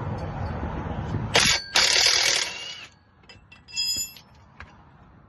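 Socket ratchet working on a car's tail shaft bolts: loud bursts of metallic ratcheting and clatter in the first half, a brief high squeak about four seconds in, then a few faint clicks.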